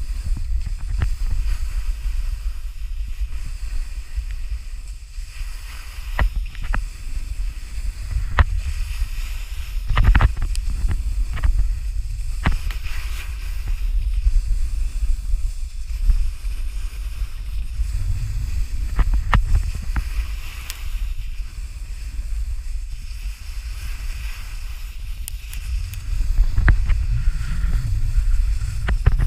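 Wind buffeting a GoPro's microphone during a downhill snowboard run: a steady low rumble that swells and eases, over the hiss of the board sliding and scraping across the snow, with scattered short knocks and clicks.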